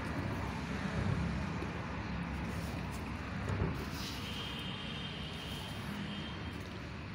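Hands crumbling and squeezing lumps of white cement into a tub of water, making wet crumbling, squishing and splashing sounds over a steady low background rumble.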